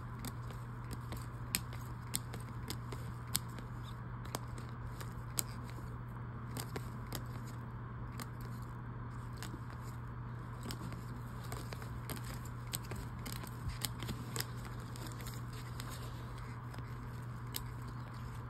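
Trading cards handled by gloved hands: light irregular clicks and scrapes of card stock sliding and tapping against other cards, with a few sharper clicks, over a steady low hum.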